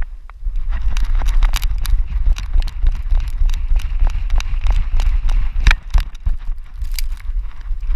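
Dog running on sand, heard through a camera strapped to its back. There is a quick, uneven patter of footfalls and harness clicks over a steady deep rumble of buffeting.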